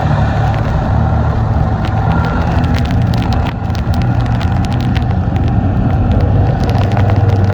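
Snowmobile engine running steadily at travel speed, a loud, even drone, with frequent sharp clicks and knocks over it.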